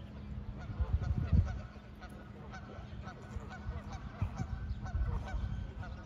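Waterfowl honking over and over, many short calls in quick succession, with a low rumble about a second in.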